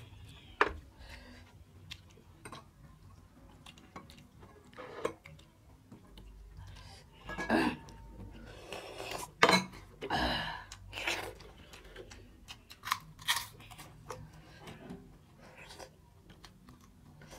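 Close-up eating sounds of two people eating rice and meat curry by hand: wet chewing and lip smacks, with light clinks of steel dishes. About halfway through come a few loud slurps as curry broth is drunk straight from a steel plate.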